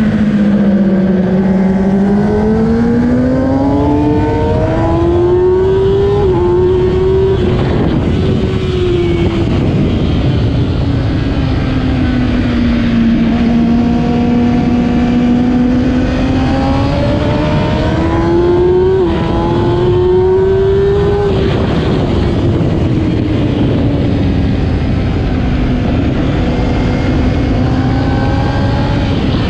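Kawasaki ZX-10R's inline-four engine at race pace. It revs up twice through short gears, with a quick upshift in each climb, and each time the revs fall away as the throttle closes, then hold steady.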